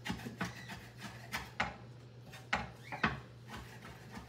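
Food prep on a wooden cutting board: a few irregular knocks and rubbing as greens are cut and moved about by hand, over a faint low steady hum.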